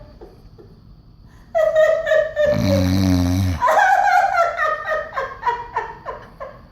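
A woman laughing hard in quick bursts, broken about two and a half seconds in by a loud, deep snore that lasts about a second. Her laughter then picks up again and trails off.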